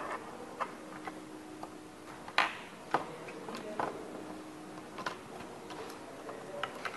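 Irregular small clicks and taps of hands handling a wooden robot chassis and threading sensor wires through a slot in it, with the loudest taps about two and a half and three seconds in.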